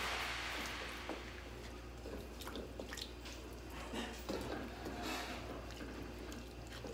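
Wooden spatula stirring chicken pieces in thin broth in a metal wok: wet squishing and sloshing with scattered light knocks and scrapes against the pan.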